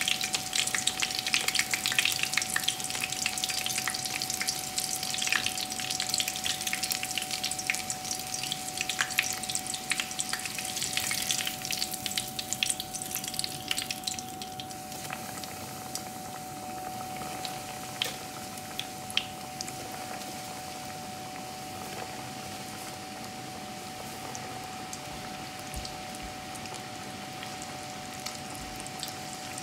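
Breaded pork cutlets deep-frying in a pot of oil: a dense crackling sizzle that thins out about halfway through to a quieter, steady bubbling with a few scattered pops.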